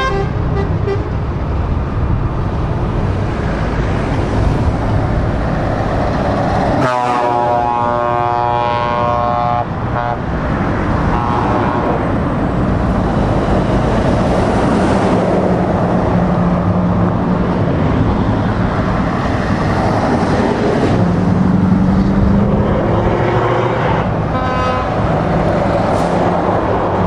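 Heavy trucks driving past close by, including a Scania R520 V8, with continuous engine and tyre noise and a deep, steady engine drone in the second half. Truck air horns sound a chord of several notes about seven seconds in, lasting a couple of seconds, and again briefly near the end.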